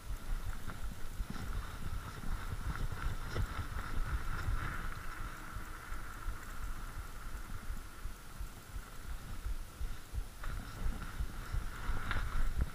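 Mountain bike rolling over tarmac and paving: a steady tyre hum with low rumble, with small knocks and rattles from the bike over bumps and a louder clatter near the end. Wind rumble on the camera's microphone.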